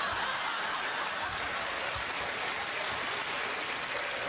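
Studio audience laughing and applauding, a steady even wash of sound.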